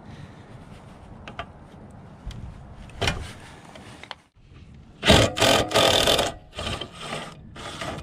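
Cordless drill with a 3/8 socket running in several short bursts, spinning out the bolts that hold the carburetor to the engine block, after a single click about three seconds in.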